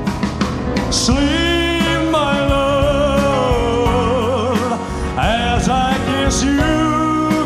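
Live rock band playing a slow ballad with drums, bass, guitars and keyboards, while backing singers hold long wordless notes with vibrato, rising in twice.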